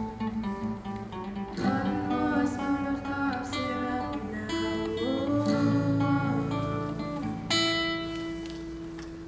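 Acoustic guitar strummed with a voice singing, the closing bars of a song. About three-quarters of the way through, a last note is struck and held, fading away toward the end.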